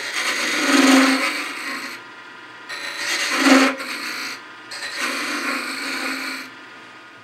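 A hand-held turning tool cuts a small spinning wooden tenon on a Laguna 1216 midi lathe: three scraping cuts, each a second or two long, over the steady hum of the lathe. The cutting stops about a second before the end.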